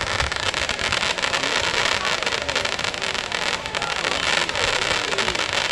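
Aerial fireworks crackling: a dense, rapid run of many tiny pops over a sizzling hiss, like crackling-star shells.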